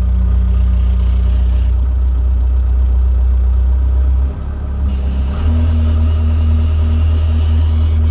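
Skid steer engine running after a cold start, warming up; about four seconds in the note dips briefly and then settles at a higher, steady engine speed as the throttle is raised to work the frozen hydraulics.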